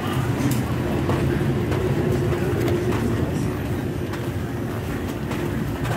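Steady low hum inside a cruise ship, with regular footsteps of someone walking, a little under two a second.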